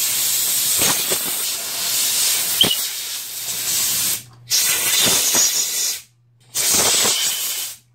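Compressed-air blow gun blowing debris off a chainsaw in three blasts of hiss: a long one of about four seconds, then two shorter ones with brief pauses between.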